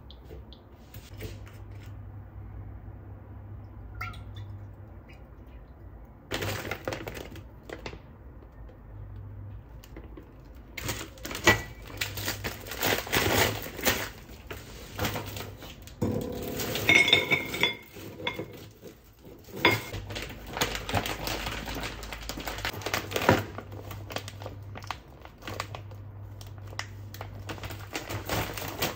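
Dishes, utensils and kitchenware being handled, with scattered clinks and knocks that build to a busy stretch of clattering in the middle.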